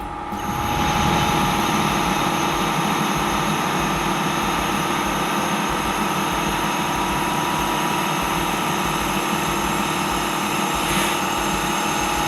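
A machine running steadily: an even hum with several steady tones over a hiss, unchanging throughout.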